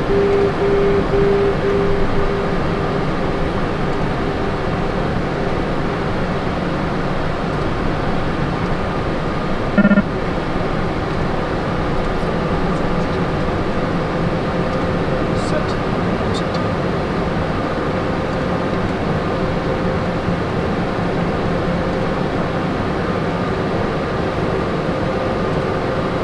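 Cessna Citation Sovereign cockpit noise in the climb after takeoff: a steady rush of airflow and jet hum with a faint steady whine. A short pulsing tone sounds in the first two seconds, and a brief electronic tone blips once about ten seconds in.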